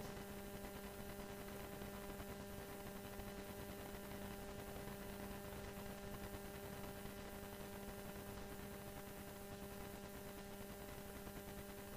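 Faint steady electrical hum: a low tone with a stack of evenly spaced higher overtones over a light background hiss, unchanging throughout.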